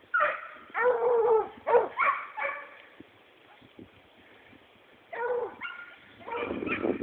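Young Bruno du Jura hounds baying in short, pitched yelping cries: a quick run of about five in the first two and a half seconds, then after a pause of about two and a half seconds, more cries near the end.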